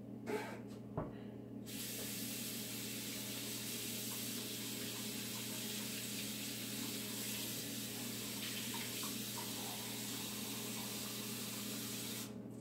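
Kitchen sink faucet running in a steady hiss, turned on about two seconds in and shut off abruptly near the end, drawing water into a cup. A couple of light knocks come just before the tap opens.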